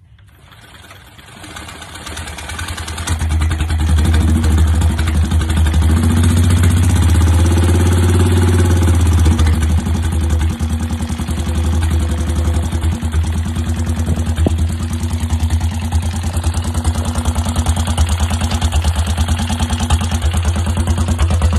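1948 Whizzer motorbike's single-cylinder four-stroke engine catching as the pedals are spun on the stand, building up over the first few seconds, then running steadily with quick, even firing pulses.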